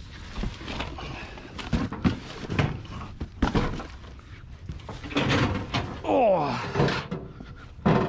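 Dumped household items and cardboard boxes being shifted by hand: a series of thuds and knocks, with cardboard scraping about five seconds in and a heavy thud at the end as a stainless steel microwave is hauled out.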